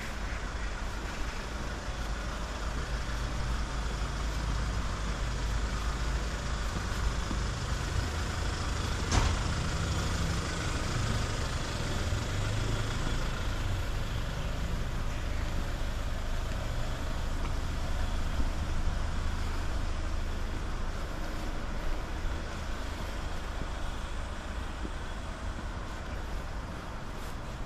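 Steady rumble of road traffic, swelling as heavier vehicles pass, with one sharp click about nine seconds in.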